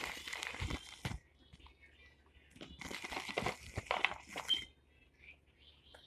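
Plastic bubble-wrap packaging crinkling and rustling as it is handled and pulled open, in two bouts: the first second and again from about two and a half to four and a half seconds in.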